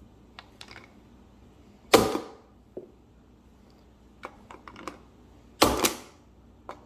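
Ludex plastic speed loader clacking as 9mm cartridges are pushed down into a Glock magazine: two loud clacks about two seconds in and near six seconds, with lighter clicks of cartridges and plastic being handled between them.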